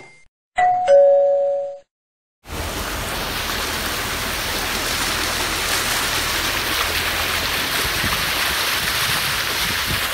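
A two-note descending ding-dong chime about half a second in, then, after a brief silence, rainstorm rain pouring steadily from about two and a half seconds on.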